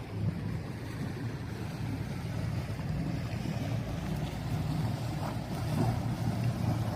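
Boat engine running on the canal with a steady low rumble, slowly growing louder.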